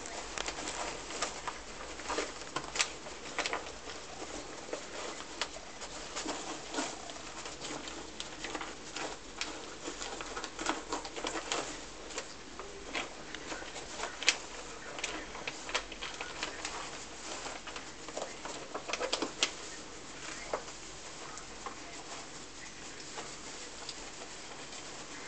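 Dry hay rustling and crackling in a plastic box as two pet striped skunks dig and nose through it for food pellets, in irregular small clicks that thin out near the end.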